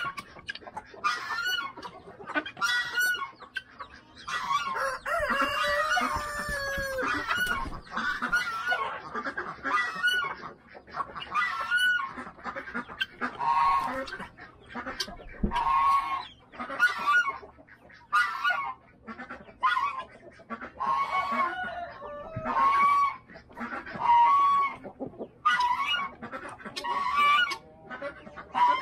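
Flock of chickens clucking and squawking with many short repeated calls, and a rooster crowing once about five seconds in.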